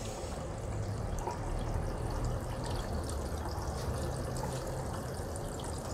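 Steady trickle of running water, with a low hum underneath.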